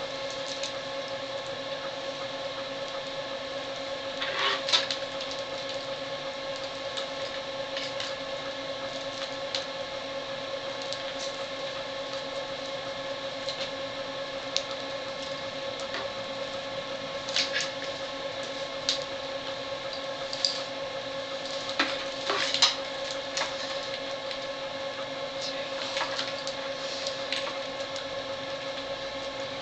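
Clear plastic dialysis tubing lines rustling and clicking now and then as they are handled, the loudest clicks about 4, 17 and 22 seconds in, over a steady electrical hum made of several fixed tones.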